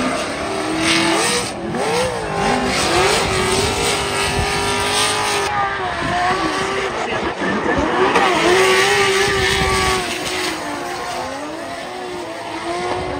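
Drift cars' engines revving hard, the pitch rising and falling again and again, with tyre squeal and noise underneath.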